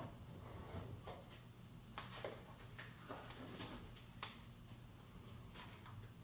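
Faint, scattered clicks and light knocks of small parts being handled, about half a dozen over a few seconds.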